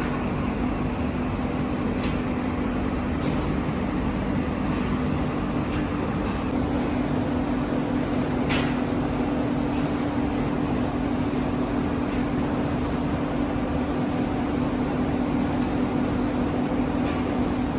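Factory machinery running with a steady hum and noise, the hum a little stronger from about six seconds in, with a few faint clicks.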